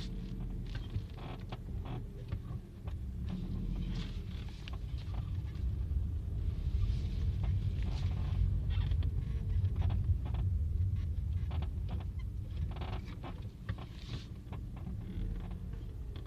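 Chevrolet Lacetti creaking from the front left, a creak that comes back again and again at irregular intervals over a steady low rumble.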